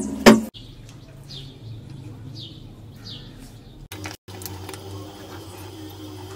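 Two sharp knocks at the very start, then a small bird chirping repeatedly: short falling chirps, one or two a second, which stop about four seconds in, leaving a faint steady hiss.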